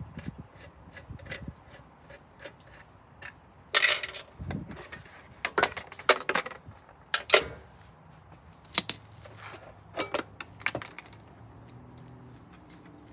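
Scattered sharp clicks and clatters of hand tools and a lawn mower's plastic recoil starter housing being handled and set down on concrete. The loudest come in an irregular cluster through the middle.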